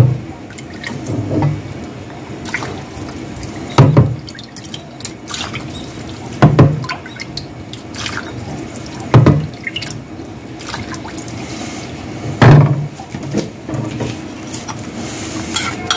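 A metal ladle scooping broth from a plastic container and pouring it into a stainless steel bowl, five times about every three seconds. Each scoop gives a sharp knock followed by a short splash and dribble of liquid.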